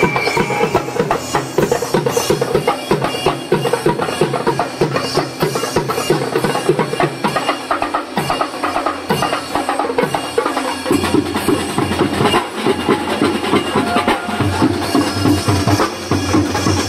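Live garba band music: fast, dense drumming and percussion in a steady rhythm, with a bass line that comes in strongly about eleven seconds in.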